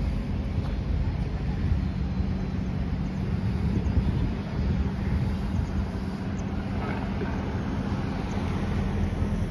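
Road traffic noise: a steady low hum of vehicles on the bridge, with a car and a motorcycle passing close by.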